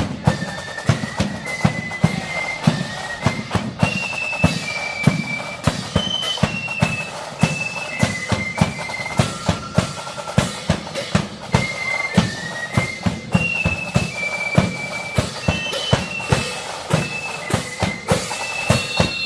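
Marching flute band playing a high, shrill melody over steady, loud bass and snare drum beats.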